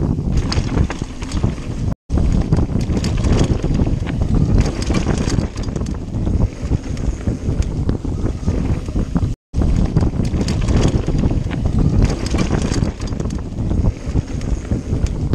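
Wind buffeting the microphone of a camera on a mountain bike at speed down a dirt trail, over the rumble of tyres and the rattle and knock of the bike on rough ground. The sound cuts out completely twice for a moment.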